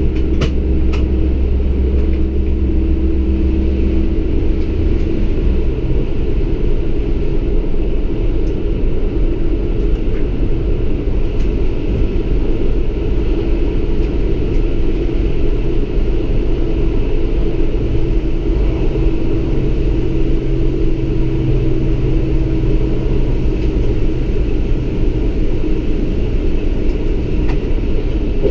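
Lint 41 diesel railcar running along the line, heard inside the driver's cab: a steady, loud rumble of engine and wheels on the rails. The engine's low hum shifts about four seconds in.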